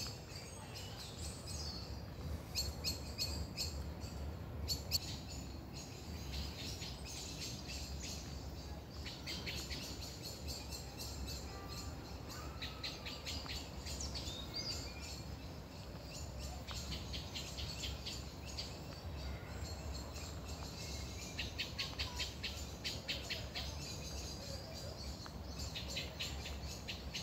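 Many small birds chirping and twittering in the trees, in quick runs of sharp notes that overlap all through, over a low steady rumble.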